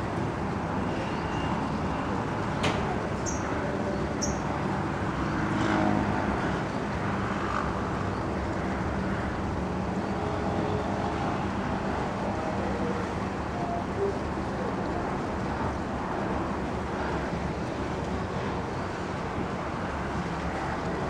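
Steady low rumble of distant road traffic, with a sharp click and two short high chirps a few seconds in.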